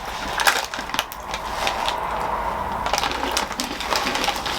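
Close-up crunching of a crunchy mixed-nut snack (cracker-coated peanuts, fried corn and green peas) being chewed, an irregular run of sharp crackles.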